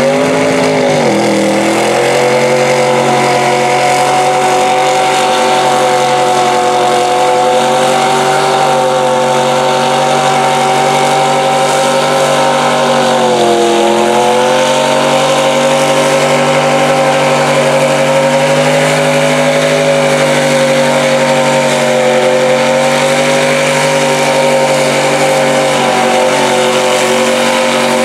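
Mega truck's engine held at high revs under heavy load as the truck ploughs through deep mud. Its pitch dips and climbs back just after the start and again about halfway through.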